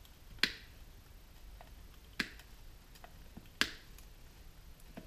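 Sharp snips of cutters biting through the copper winding wire of a sump pump motor's stator. Three loud snaps come about a second and a half apart, the last the loudest, with a few fainter clicks between.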